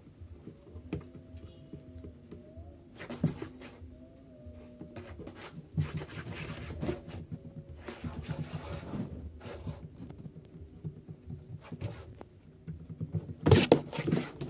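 A cat playing on its own: irregular taps, scuffles and rustles as it bats and pounces at something, with the loudest cluster of knocks near the end.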